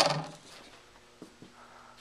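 Handling noise from a chainsaw guide bar: a knock that fades over about half a second, then two light clicks.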